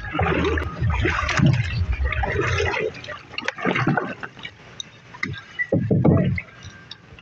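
Water sloshing and splashing. It is heaviest in the first three seconds, then comes again in short surges, the strongest about six seconds in.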